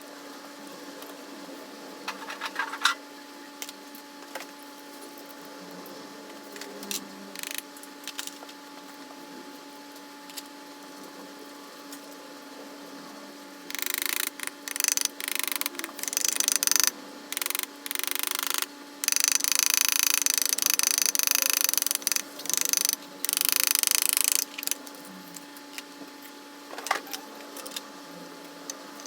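A few light clicks of tools, then a run of loud hissing bursts about halfway through: several short ones and one lasting a few seconds, over a steady low hum.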